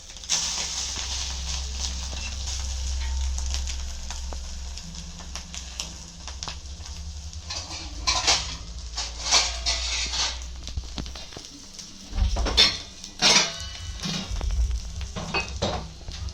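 Egg dosa frying in oil on a hot tawa, sizzling with a steady hiss. From about halfway through, several sharp scrapes and knocks of a spatula against the pan.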